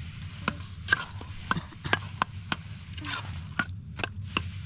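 A series of sharp, irregular knocks and clicks, about ten in all, over a steady low hum.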